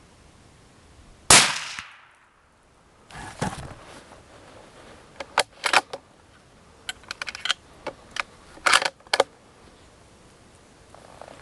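A single loud hunting-rifle shot about a second in, the shot that drops the buck. It is followed by a scatter of sharp clicks and rustles over the next several seconds.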